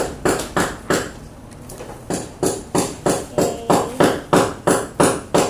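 Felt-tip pen scribbling colour onto paper, about three quick back-and-forth strokes a second, with a pause of about a second near the start.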